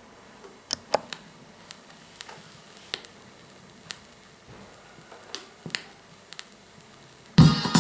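Vinyl record's lead-in groove playing under the stylus: scattered surface clicks and pops over a faint hiss. Near the end the house track starts abruptly.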